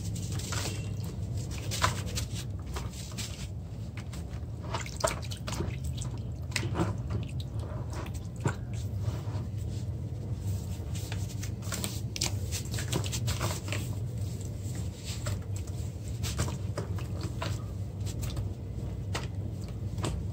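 A bucket-moulded cake of dry red dirt being crumbled and squeezed by hand into a basin of water: irregular drips, small splashes and wet squishing, with sharp crumbly ticks as pieces break off.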